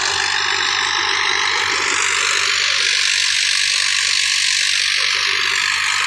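Farm tractor's diesel engine running steadily while working wheat-harvesting machinery, with a continuous loud rushing noise.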